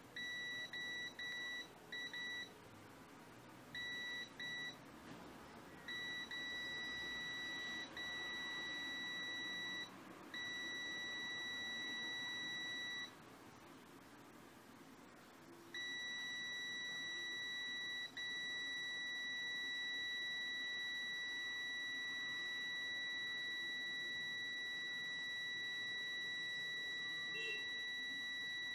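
Extech EX355 multimeter's continuity beeper giving a steady high-pitched tone with its probes across a halogen bulb's filament, but cutting out again and again. Short broken beeps come first, then longer tones with brief dropouts, then a silence of nearly three seconds while the meter still shows a reading, then an unbroken tone for the second half with one short dropout. The beep interrupting while the probes are connected is the fault being shown.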